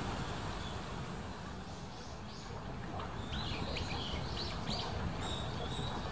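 A steady low outdoor rumble, with a run of short, high bird chirps starting about three seconds in.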